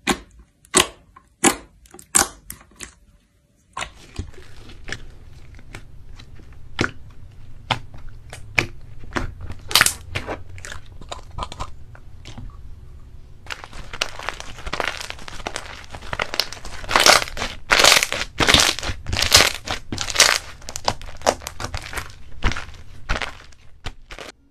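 Hands pressing and stretching slime mixed with foam beads and pom-poms, making sharp pops and crackles. A few loud separate pops come first, then after a short pause a sparser run of clicks, and from about halfway on a dense, louder crackling.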